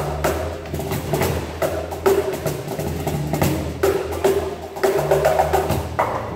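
Two BangBox cajons played by hand in a busy groove, sharp slaps and deeper thumps, over an electric bass line of sustained low notes.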